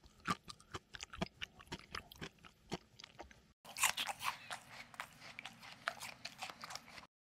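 A toddler biting and chewing a pie, with many irregular crisp crunching clicks.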